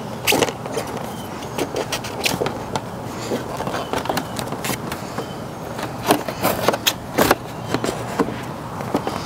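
Scattered clicks and taps of a plastic motorcycle windscreen and its screws being handled and fitted, with a cluster of sharper knocks about six to seven seconds in, over a steady hiss of light rain.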